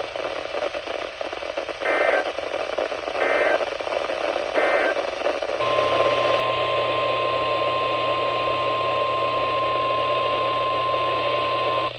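Weather radio receiver playing three short bursts of warbling SAME digital data tones, the end-of-message code that closes a NOAA Weather Radio warning. About a second later comes the steady single-pitch 1050 Hz warning alarm tone, held for about six seconds, all over radio hiss.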